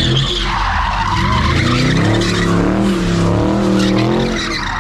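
A car doing donuts: its engine revs hard, rising and falling in pitch, while the tyres spin and screech on the asphalt.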